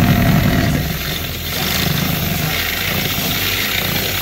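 Cordless drill running under load, a 6 mm twist bit cutting through the sheet-steel edge of a car door. The motor and grinding are loudest in the first second, then carry on steadily.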